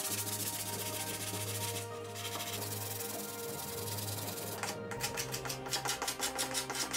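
Sandpaper rubbed by hand over a wooden dresser's veneered rounded edge, a steady rubbing hiss. About four and a half seconds in it gives way to quick, regular strokes of a carbide hand scraper pulling old finish off the wood.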